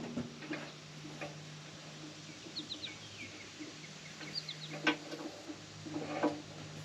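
A bird chirping twice in quick runs of short, falling notes, over a steady low hum and scattered knocks and clinks of hand work on metal parts. The sharpest knock comes about five seconds in.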